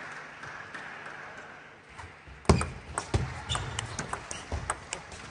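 Crowd applause dying away, then a table tennis rally begins about two and a half seconds in: the ball clicks sharply off the rackets and the table in a quick back-and-forth, with low thumps from the players' footwork.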